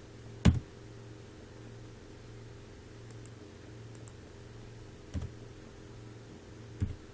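A few sharp clicks from operating a computer, the loudest about half a second in and two more near the end, over a steady low hum.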